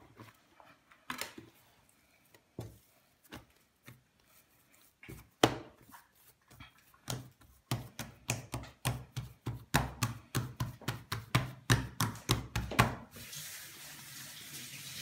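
Hand-made knocks on a kitchen work table: a few scattered at first, then a quick, even run of about three a second from about halfway through, with a steady hiss taking over near the end.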